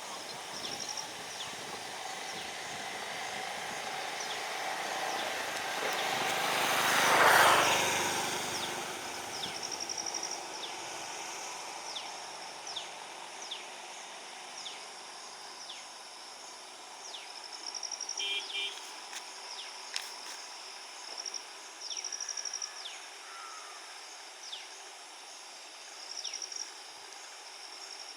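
Outdoor ambience of insects buzzing in repeated short trills, with many faint, quick bird chirps. A broad whooshing noise swells and fades, loudest about seven seconds in.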